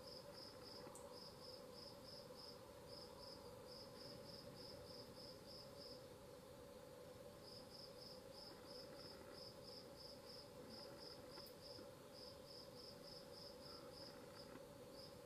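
Faint cricket chirping steadily, about three short high chirps a second, with a brief pause around six seconds in.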